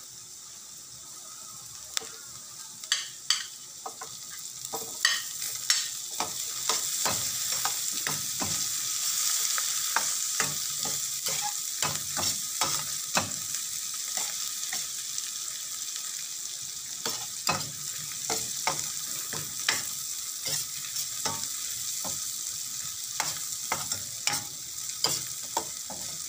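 Garlic and red onion sizzling in hot fat in a stainless steel pan, with a metal ladle scraping and clinking against the pan as it stirs. The sizzle gets louder a few seconds in.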